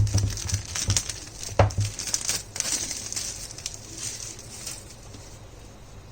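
Camera packaging being handled and opened: crinkling and rustling of the box and wrapping, with a few sharp knocks in the first two seconds. It dies down after about five seconds.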